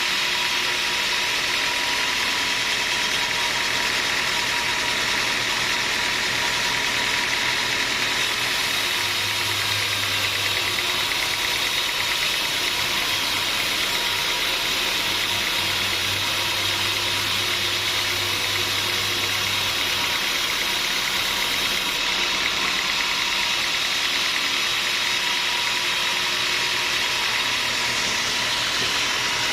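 Sawmill machinery running steadily, with a deeper hum joining in from about nine seconds to about twenty seconds in.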